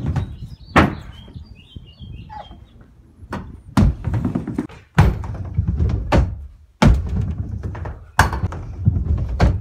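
Stunt scooter on a wooden half-pipe ramp: its wheels rolling over the boards with a low rumble, broken by sharp thunks as the scooter hits the ramp, about six times.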